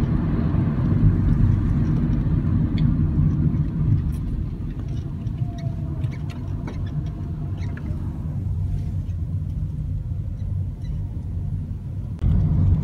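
Steady low road and engine rumble inside a moving taxi, easing a little after a few seconds and turning suddenly louder just before the end.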